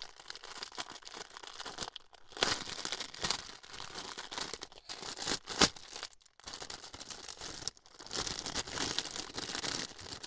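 Packaging being handled and pulled open, with crinkling, rustling and tearing that stops briefly a few times, and a sharp click a little past halfway.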